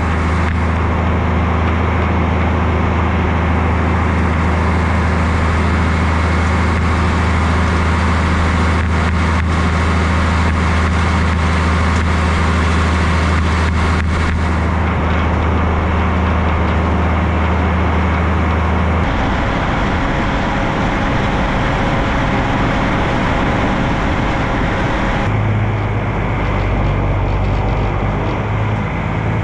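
Tractor engine running steadily, a loud low drone. The sound changes abruptly twice, about two-thirds of the way through and again near the end.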